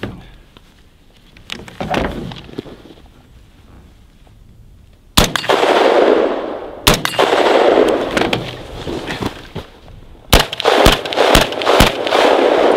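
AR-15-style 16-inch carbine firing Wolf Gold ammunition: a single shot about five seconds in, another near seven seconds, then a quick string of five or six shots from about ten and a half seconds. Each report lingers for a second or more after the crack.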